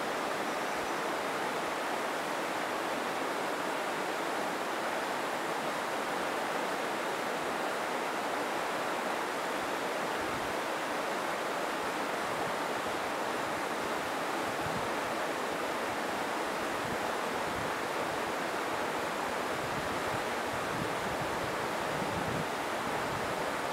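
Steady, even rushing of a mountain stream's flowing water.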